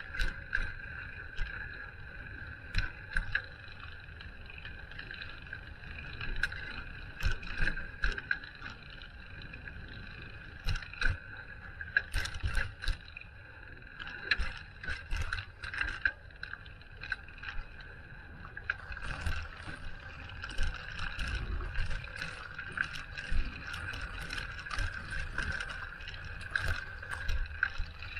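Ride-along noise of a bicycle on the move: a steady rush with a constant high hum, broken by frequent small knocks and rattles from bumps, which come thicker in the second half.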